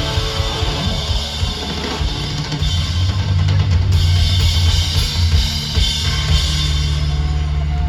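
Live rock band playing loud, with the drum kit to the fore: heavy bass drum and crashing cymbals.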